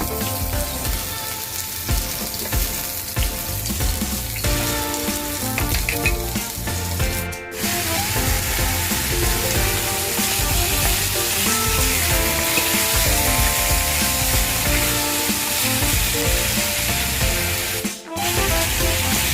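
Food sizzling as it fries, a steady hiss that grows louder after a brief break about seven seconds in and breaks off again near the end. A melodic background music track plays over it.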